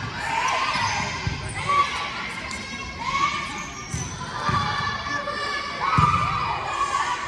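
Volleyball rally in a school gymnasium: the ball is struck several times with short thumps, the loudest about six seconds in. Players call out and spectators shout between the hits.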